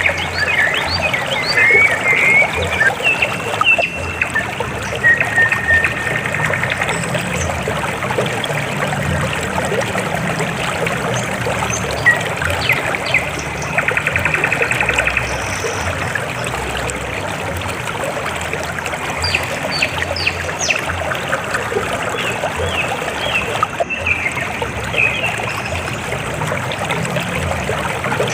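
River water flowing and trickling steadily over rocks, with short high chirps and rapid trills coming through now and then.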